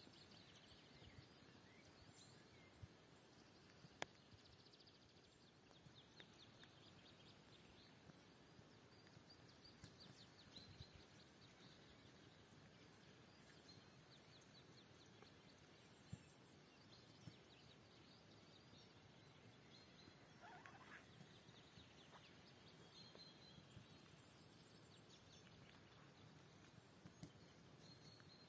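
Near silence: faint outdoor quiet with distant small birds singing short trills now and then, one rising call a little past the middle, and a few soft clicks.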